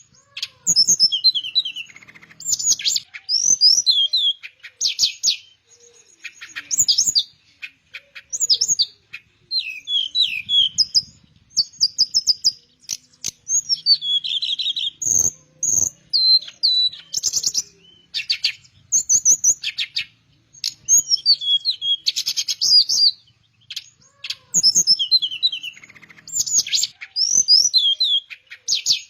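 A teledekan Melayu, a flycatcher (sikatan), singing steadily: phrase after phrase of quick high chirps, trills and falling whistles, each about a second long with short pauses between.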